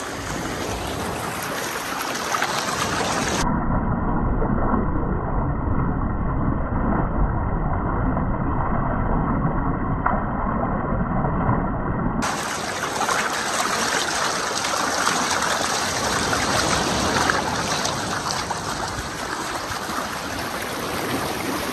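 Swollen river rushing fast over a gravel bed in a steady noisy flow. For several seconds in the middle it sounds muffled and deeper.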